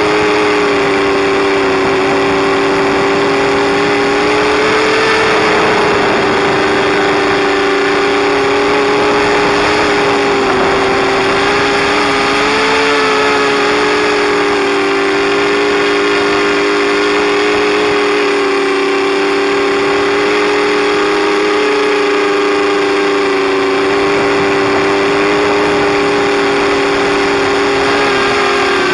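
FPV quadcopter's electric motors and propellers whining steadily in flight, heard from the camera on the quad's own frame. The pitch wavers slightly with throttle changes.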